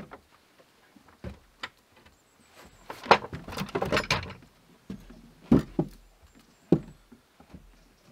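Knocks and scraping of a wooden stool being handled and set down on wooden boards, with footsteps. There is a busy stretch of rattling about three to four seconds in and single sharp knocks at about five and a half and seven seconds.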